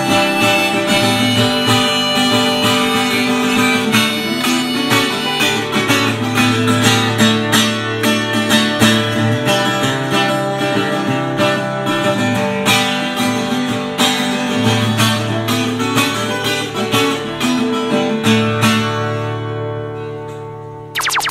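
Music led by acoustic guitar with plucked, strummed strings, fading out near the end. A different sound cuts in abruptly right at the end.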